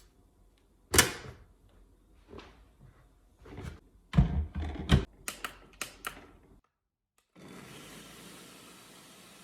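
A run of irregular knocks and clicks of kitchen utensils against bowls, the loudest about a second in and a cluster around four to five seconds in; after a brief silence, a steady hiss.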